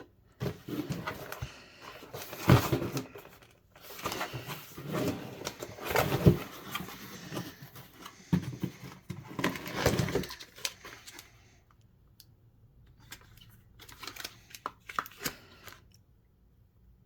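Packaging of a spool of wood-fill PLA filament being handled and opened: crinkling and rustling in repeated bursts for about the first ten seconds, then only a few light clicks and taps.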